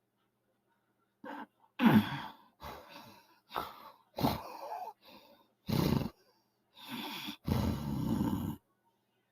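A woman snoring in her sleep: an irregular run of about eight snores and snorts of varying length, starting about a second in, the loudest one shortly after.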